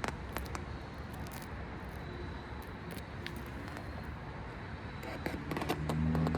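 Maxed-out amplified speaker of a homemade laser-audio receiver hissing, with scattered clicks and crackles from loose connections; about six seconds in, a steady low hum comes through and gets louder.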